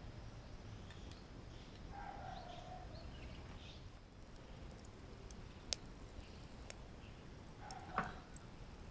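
Faint outdoor background with a few short, distant bird chirps and two sharp ticks, the louder one about eight seconds in.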